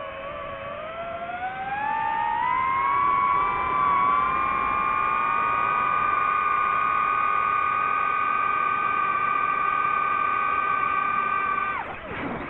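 DJI FPV quadcopter's motors and propellers whining. The pitch rises over the first few seconds as the throttle comes up, holds steady, then drops sharply near the end as the throttle is cut.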